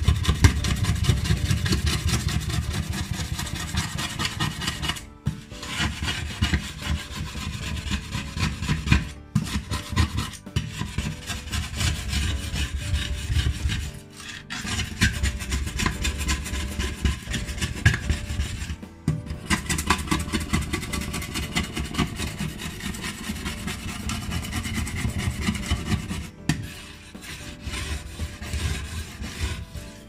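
Rapid back-and-forth scrubbing on the soapy surface of a ceramic glass hob, the tool rubbing hard against the glass. It stops briefly four times and gets lighter near the end.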